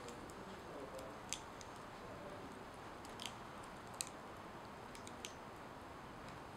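Faint, irregular crackling ticks from a charred corn tortilla smouldering on a metal tray, over a steady low hiss; a handful of sharp ticks come a second or more apart, the loudest about four seconds in.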